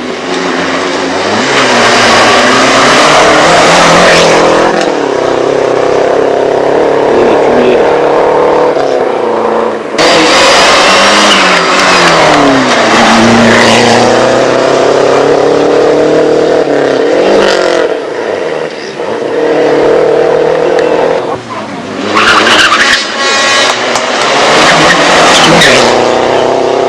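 Rally cars passing one after another, engines revving hard and rising and falling in pitch through gear changes. The sound cuts abruptly about ten seconds in and again about twenty-one seconds in, as one car gives way to the next.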